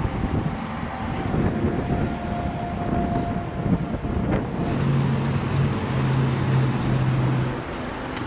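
Outdoor traffic noise with wind buffeting the microphone. A steady low drone, such as a nearby engine, comes in about halfway and stops shortly before the end.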